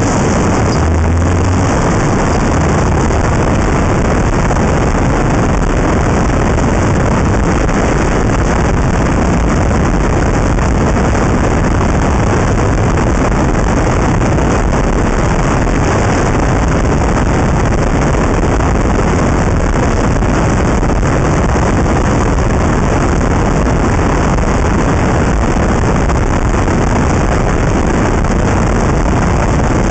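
Steady wind noise rushing over a camera microphone clamped to the outside of a moving Honda Integra Type R, mixed with the car's road and tyre noise.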